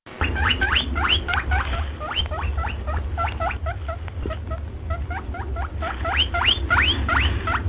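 High, rapid squeaks, each rising sharply in pitch, in quick runs of several with short gaps between, over a low steady rumble; set to a hare as its call.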